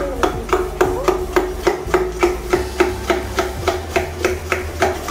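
A bottle brush scrubbing the inside of a copper water bottle, knocking against the metal walls in quick, even strokes, about five a second.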